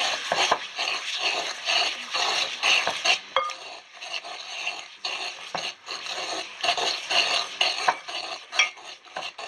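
Wooden pestle scraping and rubbing round a ribbed ceramic makutra bowl in quick, rhythmic strokes, beating egg into sugar until the two combine into a smooth liquid mass.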